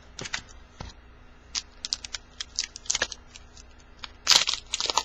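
Plastic wrapper of a Bowman baseball card pack crinkling and crackling as it is handled and torn open: a run of short, sharp crackles, with a louder, longer crinkle about four seconds in.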